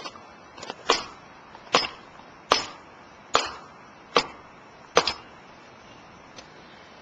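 Six sharp knocks or thuds, evenly spaced a little under a second apart, stopping about five seconds in.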